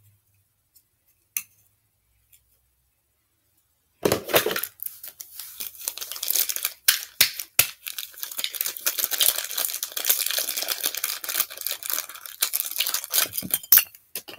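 Plastic crinkling and tearing, with many sharp clicks, starting about four seconds in and running for about ten seconds, as a small cosmetic tube is handled and opened. Before that, only a few faint clicks.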